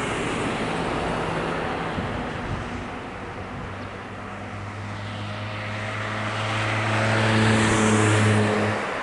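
Road traffic: a vehicle passing, its tyre and engine noise swelling to a peak near the end, with a steady low engine hum that comes in about a third of the way through and stops abruptly shortly before the end.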